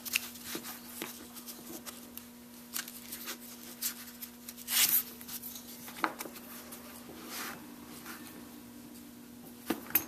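Leather strap being handled and slid through a leather belt keeper: scattered soft rubbing and light taps, with a louder scuff about five seconds in, over a steady faint hum.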